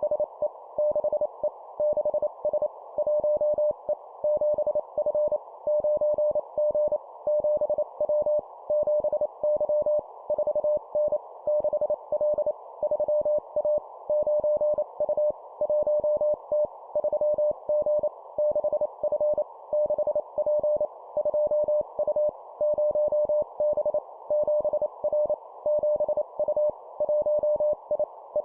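Morse code (CW) at 25 words per minute: a single steady tone near 600 Hz keyed rapidly into dots and dashes, sent as short two-character groups of letters and numbers with brief pauses between them. A faint filtered hiss sits under the tone and stays on through the gaps.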